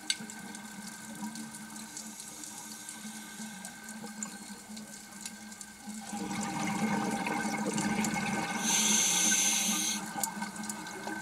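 A scuba diver breathing underwater through a regulator. About six seconds in comes a long rush of bubbles, then a sharp hiss of about a second and a half, over a faint steady hum.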